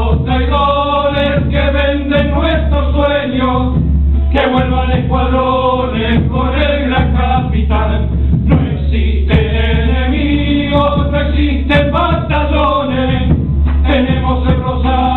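A group of men singing an Argentine zamba together, accompanied by acoustic guitar and a bombo legüero drum.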